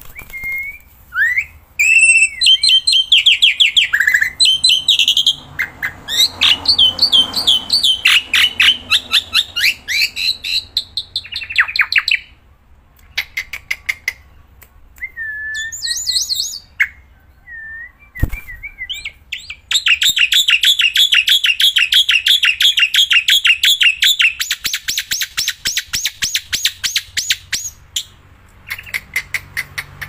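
Black-winged myna (Javan white starling) singing loudly and almost without pause: long runs of fast repeated harsh notes, broken by short whistled phrases and a few brief gaps.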